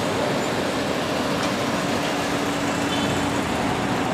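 Steady urban traffic noise, with a low steady engine hum coming in about a second in.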